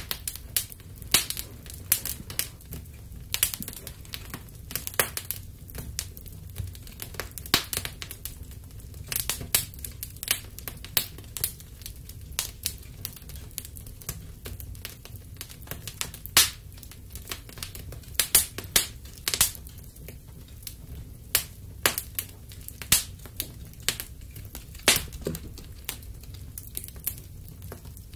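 Wood fire crackling: irregular sharp pops and snaps of varying loudness over a low, steady rumble.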